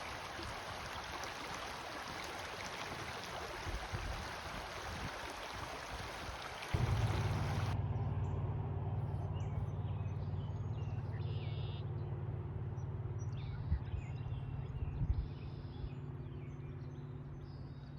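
Creek water rushing steadily for the first seven seconds. Then it cuts abruptly to a quieter steady low drone, with birds chirping now and then and a couple of soft thumps.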